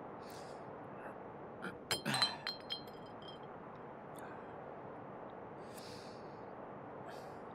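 A glass bottle clinking: a quick cluster of sharp clinks with a short high ringing about two seconds in, then two lighter clinks, over a steady low background hiss.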